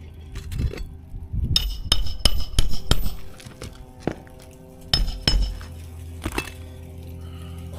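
Sharp metallic clinks and taps as a metal tool works against brittle asphalt shingles. There is a quick run of hits in the first few seconds and a few single strikes later, over a steady low hum.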